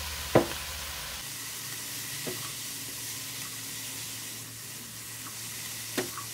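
Vegetables sizzling in oil in a nonstick wok as a spatula stirs them, with a sharp knock about half a second in and a couple of softer knocks of the spatula against the pan later.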